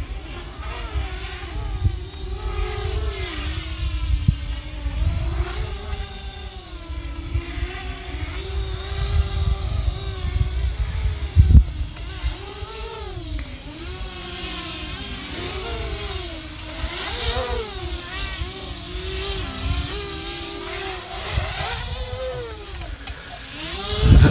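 Hubsan X4 micro quadcopter's small motors and propellers whining in flight, the pitch wavering up and down as the throttle changes. Low rumbling wind noise on the microphone runs underneath, with a single sharp thump about eleven seconds in.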